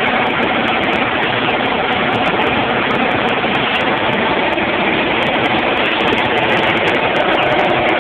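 Steady rushing air noise in an automotive paint spray booth, with a faint steady hum under it.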